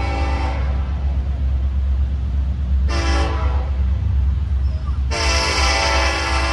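Locomotive air horn sounding a chord over the steady low rumble of the train: a long blast that ends about half a second in, a short toot about three seconds in, then another long blast from about five seconds in. The long-short-long pattern fits the end of a grade-crossing signal.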